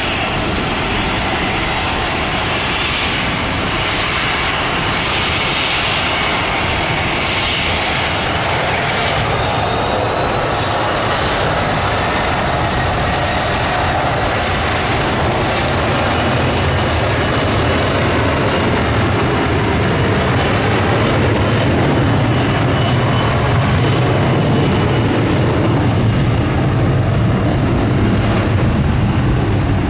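Twin jet engines of a Boeing 737 cargo jet at takeoff power during the takeoff roll. A rising whine sits over a steady rumble, and the rumble grows louder through the second half.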